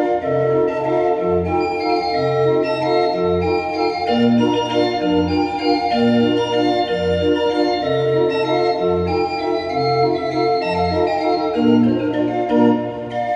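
Organ music: a folk tune played over held chords, with a bass line bouncing between low notes in an even, repeating rhythm.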